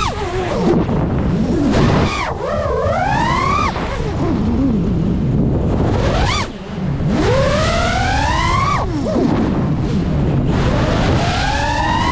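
FPV quadcopter's brushless motors and propellers whining, the pitch climbing steeply with each throttle punch and falling back off, several times over, with a constant rush of wind on the onboard microphone.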